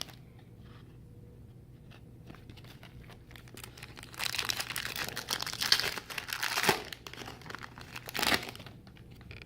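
A Donruss Racing trading-card pack's wrapper being torn open and crinkled: a loud rustling tear lasting about three seconds, starting about four seconds in, and a shorter crinkle near the end. Faint handling clicks come before it.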